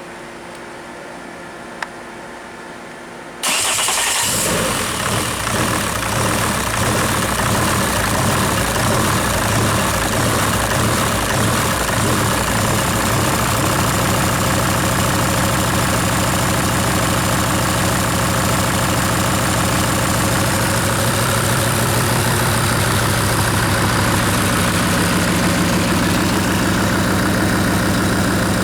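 Car engine cranking and catching about three seconds in, then idling steadily while its oil pressure is checked. A single click comes shortly before the start.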